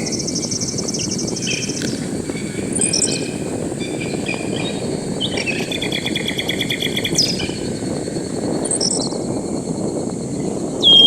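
Tropical park birds chirping and trilling in short phrases, some sweeping down in pitch, over a steady low background hum. A high, rapidly pulsing insect trill runs for the first two seconds, then stops.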